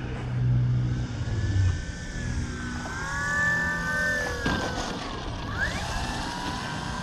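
Electric motor and propeller of a Flex RV-8 60E RC plane whining, the pitch bending up and then down as the throttle changes on the approach. A short rough noise comes about four and a half seconds in as it touches the runway. The whine then rises sharply as the motor is throttled up to take off again.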